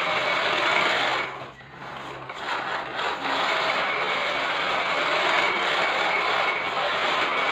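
Radio-controlled Scania truck model driving: a steady, noisy running sound that drops away briefly about a second and a half in, then picks up again.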